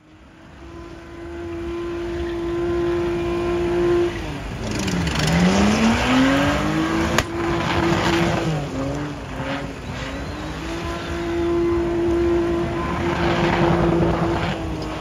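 Car engine fading in and held at high revs, dropping sharply about five seconds in and climbing straight back, then wavering and held high again.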